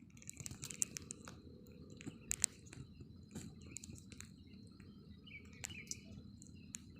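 Faint morning birdsong in a plantation: many short, high chirps and clicks from several birds, with a brief sliding call about five and a half seconds in, over a steady thin high tone.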